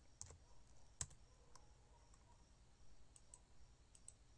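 Faint, scattered clicks of a computer keyboard and mouse, seven or so taps with the loudest about a second in.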